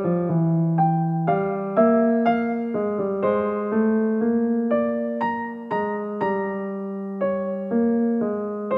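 Background piano music: a slow, gentle melody of single struck notes, about two a second, over lower notes.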